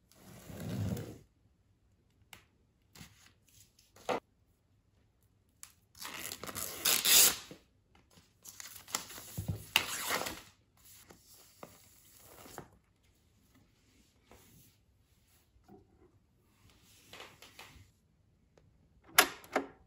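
A vinyl LP being slid out of its album jacket and sleeve: two bursts of rustling and crinkling a few seconds apart, with lighter handling noises, then a sharp click near the end as the record is handled at the turntable.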